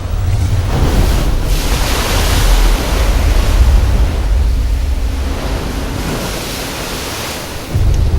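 Loud rushing noise over a deep rumble, swelling about a second in and slowly easing off, with a fresh surge near the end.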